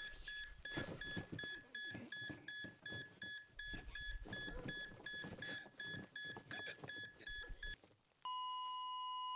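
Heart monitor beeping fast, about three beeps a second, over a man's strained gasping breaths. Near the end the beeping stops and, after a moment's gap, gives way to one continuous flatline tone, the sign of the heart stopping.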